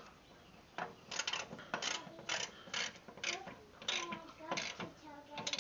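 Ratchet wrench being cranked back and forth on a mower-deck spindle bolt, a short burst of clicking about twice a second, starting about a second in.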